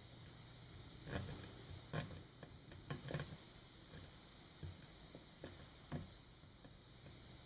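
Faint scraping and light clicking of a lock pick working inside an older Yale padlock's keyway, the pick scratching against the sides of the lock while setting pins. The clicks and scrapes come singly and in small clusters, a few seconds apart.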